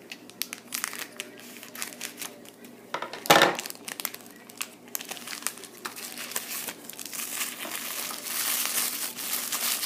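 A K'NEX blind figure packet being crinkled and torn open by hand, a run of sharp crackles with one louder crackle about three seconds in and denser crinkling over the last two seconds.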